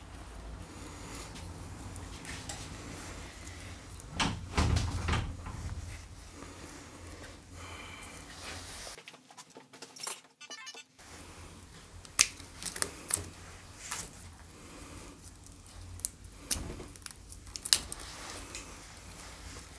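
Small clicks, knocks and rustles of hands handling electrical wiring and plastic connectors while wiring up a heated grip. A few sharp clicks stand out, with a steady low hum underneath.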